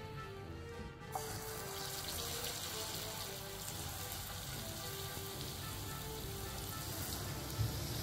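Balls of banana, jaggery and rice-flour batter deep-frying in hot oil, a steady sizzle that starts about a second in, under soft background music.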